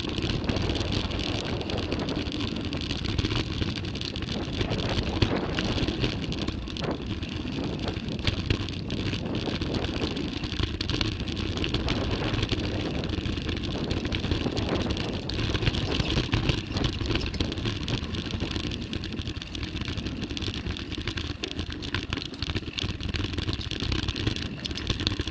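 Mountain bike riding down a trail: continuous tyre noise on dirt and gravel with irregular small rattles and knocks from the bike over bumps, under a steady wind rumble on the microphone.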